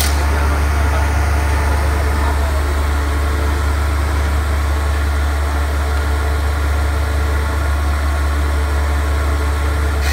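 Broom-handle rounding machine running with a loud, steady motor hum as a wooden handle passes through its rubber feed rollers and cutter heads.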